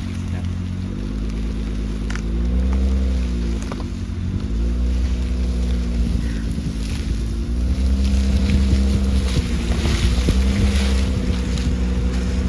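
V6 car engine running under load, its pitch rising and falling several times as the throttle is worked on rough ground. Scattered crackling knocks join in from about halfway through.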